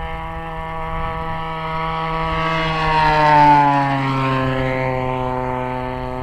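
Desert Aircraft DA-35 single-cylinder two-stroke gas engine of a large RC aerobatic plane passing by in flight: a steady propeller drone that grows louder, peaks about three and a half seconds in, then falls in pitch as the plane flies away.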